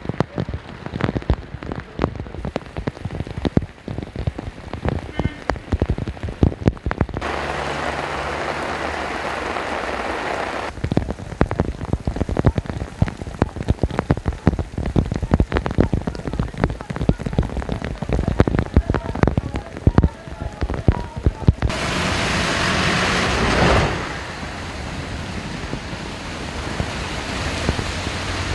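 Heavy downpour: rain pattering hard on pavement, with dense, irregular drop hits close to the microphone. Twice it turns to a smoother steady rushing hiss, the second time louder, before settling into a steadier hiss with a low rumble near the end.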